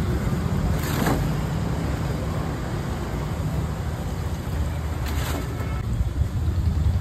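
A steady low rumble, with two brief metal scrapes, about a second in and about five seconds in, as a big slotted iron ladle scoops fried khaja out of a large kadhai of hot oil.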